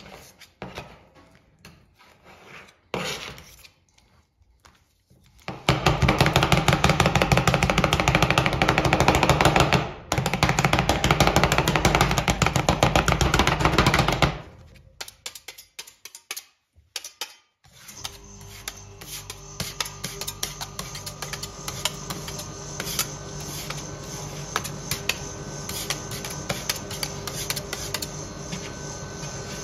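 Two steel spatulas on the stainless steel cold plate of a rolled ice cream machine: scattered scrapes and taps at first, then about nine seconds of fast, loud chopping of the ice cream base against the plate. After that comes a quieter steady hum with light scraping and ticks as the mixture is pushed together.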